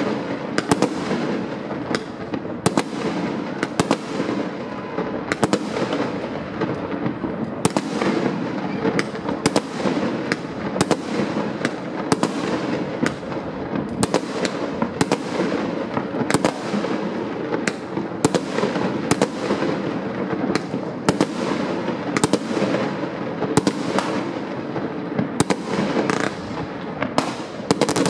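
Aerial fireworks going off all around a city: a dense, unbroken crackle and rumble of many distant bursts, with a sharp bang about every second.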